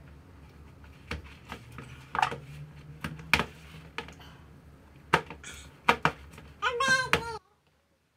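Hands kneading bread dough in a plastic mixing bowl, with scattered taps and knocks against the bowl. Near the end a short, high, wavering cry, after which the sound cuts out abruptly.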